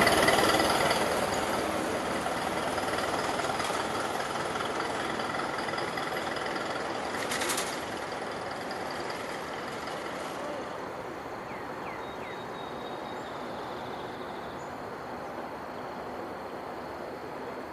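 A vintage car that has just passed, its engine and road noise fading steadily as it moves away. A brief hiss comes about seven seconds in. After about ten seconds only a quiet outdoor background is left, with a few faint chirps.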